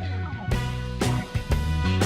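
Background music with guitar and a steady beat that comes in about half a second in.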